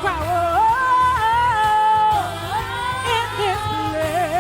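Christian worship song: a singer holds long, gliding notes without words over a steady low accompaniment, breaking into a wide vibrato near the end.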